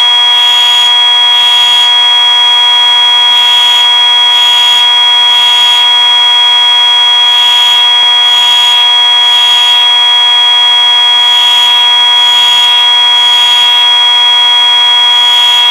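Simplex fire alarm horns sounding during a system test. One horn tone holds steady while another set of horns pulses in groups of three with a short pause between groups, the temporal-three evacuation pattern.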